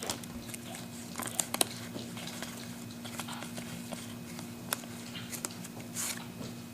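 Trading cards being handled and flipped through: light clicks and ticks of card stock against card and wrapper, scattered irregularly, over a steady low hum.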